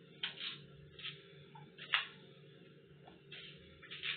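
Knife scraping and cutting through green banana peel in short rasping strokes, the sharpest about two seconds in, over a steady low hum.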